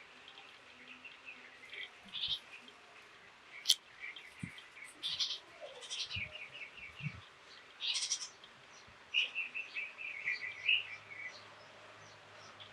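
Small backyard birds chirping: scattered short calls and quick runs of rapid chirps, with a sharp click about a third of the way in. A few faint low thumps.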